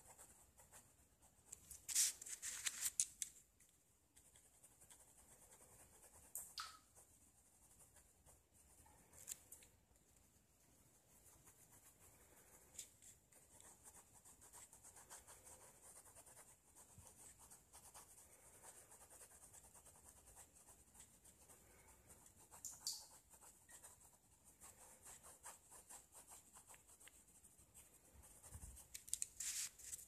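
Ballpoint pen scratching faintly on notebook paper in quick shading strokes, with a few louder scrapes about two seconds in and again near the end.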